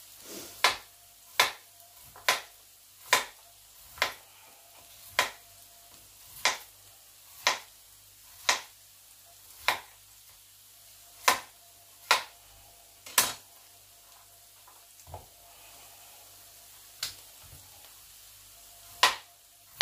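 Kitchen knife slicing a raw potato into thick rounds on a plastic cutting board: a sharp tap each time the blade reaches the board, about one a second. A pause of a few seconds with a couple of lighter taps comes about two thirds of the way in, then the taps resume near the end.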